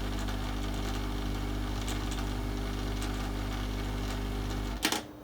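Heat gun's fan running steadily in cool-down mode with a low, even hum, then switched off with a click near the end.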